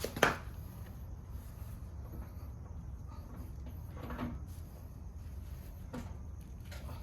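A sharp knock just after the start, the loudest sound, then a second knock about four seconds in and a faint one near six seconds, over a steady low hum.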